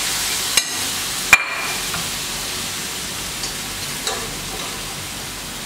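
Fish pieces and garlic sizzling in hot oil in a frying pan, the sizzle slowly dying down after the fish goes in. Two sharp clinks about half a second and just over a second in, the second ringing briefly, then a few light clicks of a spoon stirring in the pan.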